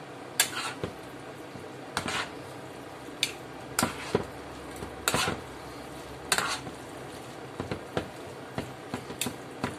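Metal spoon and fork stirring and tossing spaghetti in tomato sauce in a non-stick frying pan. The cutlery scrapes and clinks against the pan at irregular intervals.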